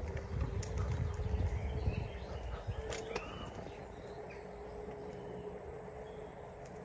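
Outdoor ambience of small birds chirping, one call rising in pitch about three seconds in. Under it run a faint steady hum and a low rumble that eases off after the first few seconds.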